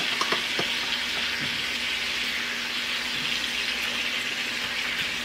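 Chicken, vegetables and mushrooms sizzling steadily in hot oil in a wok, with a few light clicks in the first second and a half.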